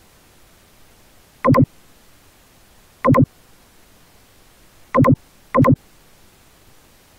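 Four short electronic beeps from the computer, each about a fifth of a second long, the last two close together, over a steady low hiss.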